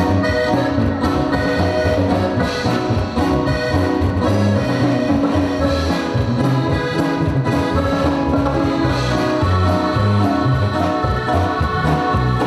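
Live band music: a Latin dance tune with a steady beat and a walking bass line, accordion-like melody on top.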